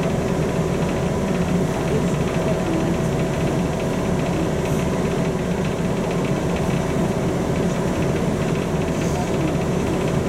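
Steady engine hum and rumble inside the passenger cabin of a Volzhanin-5270 CityRhythm-12 city bus, even throughout with no sudden sounds.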